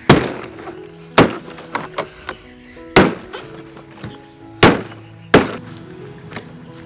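A long-handled blade chopping into the fibrous stems and core of a fan palm: about five heavy strikes at uneven intervals, with a few lighter knocks between them, over background music.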